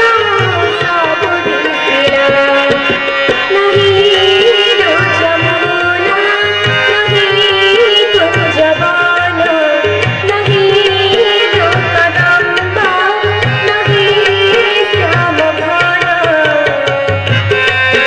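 Odia Krishna bhajan music played as a mobile ringtone: a sliding melody over a steady tabla rhythm.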